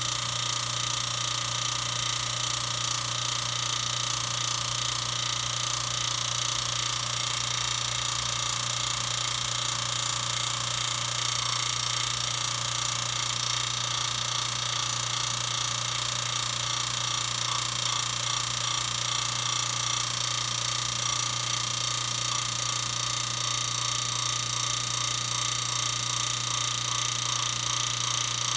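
Ariston Genus HE gas boiler running with a steady whistle over a constant low hum.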